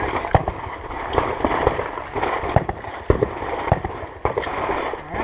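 Rifle shots fired in a string: a series of sharp reports, roughly one every half second to a second.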